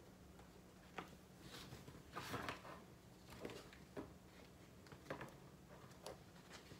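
Faint scattered clicks and light knocks of things being handled, about six in all, with a short rustle about two seconds in, over quiet room tone with a low steady hum.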